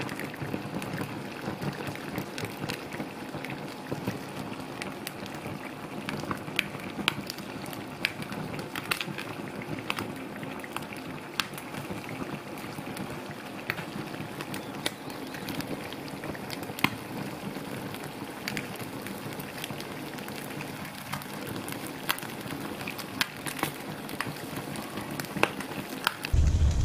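Chicken thighs and drumsticks sizzling in hot fat in a frying pan while flambéed brandy burns over them, with frequent sharp pops and spits.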